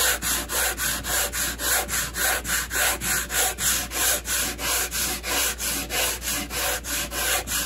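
Coarse 36-grit sandpaper on a wooden block rubbed by hand back and forth across old piano wood, about three strokes a second, flattening the surface for gluing.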